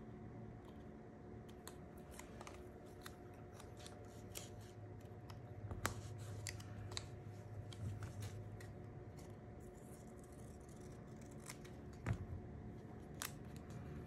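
Small scissors snipping paper, a scattered run of soft clicks with a few sharper snips, over a faint steady hum.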